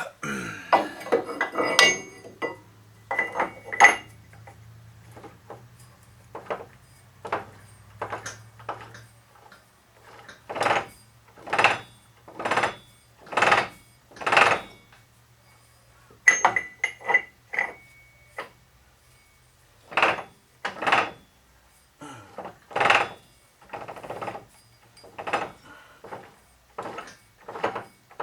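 Metal clunks and knocks from a 2003 Ford Expedition's front axle shaft being worked back and forth in the front differential. Its splined end has chewed-up teeth and no retaining C-clip, so it knocks loosely in place. A quick rattle at the start gives way to single sharp knocks, often about one a second.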